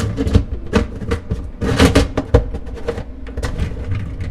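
Plastic dishwasher filter being worked back into its housing in the bottom of the tub: a string of irregular hard plastic clicks and knocks.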